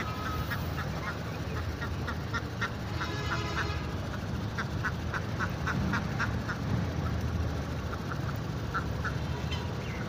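Domestic ducks quacking, short calls repeated in quick runs, over a steady low rumble.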